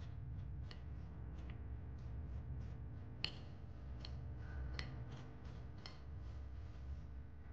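Chopsticks stirring a chopped broccoli, egg and onion mixture on a ceramic plate: irregular light clicks of the tips against the plate, with one sharper click about three seconds in, over a low steady hum.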